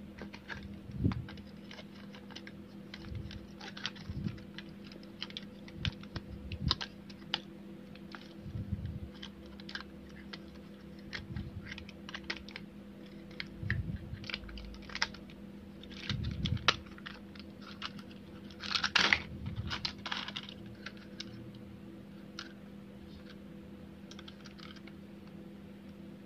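Hard plastic toy-train parts clicking and knocking as they are handled and snapped together: irregular sharp clicks, with a louder cluster about three-quarters of the way through.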